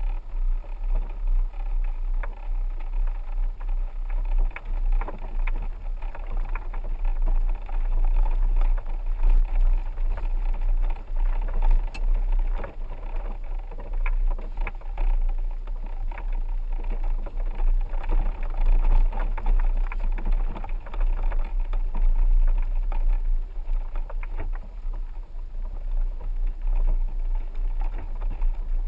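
Low rumble of a 4x4 rolling slowly over a rough dirt track, with scattered knocks and rattles throughout.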